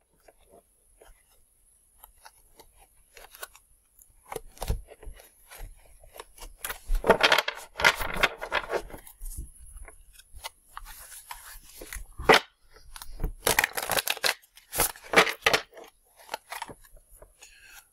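A tarot deck being shuffled by hand: uneven bursts of card edges rustling and slapping together. It is almost quiet for the first few seconds, then gets busier.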